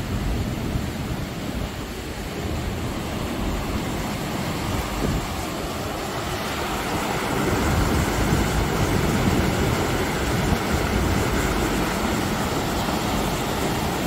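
Small river rapids rushing over rocks, a steady noise of churning whitewater that grows louder about halfway through, with wind buffeting the microphone.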